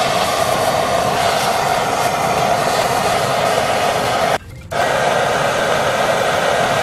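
Hand-held propane torch burning with a steady, loud rushing hiss as its flame heats a Dana 60 steering knuckle's lower kingpin bore to free a stuck bearing race. The hiss drops out for a moment about four and a half seconds in, then carries on.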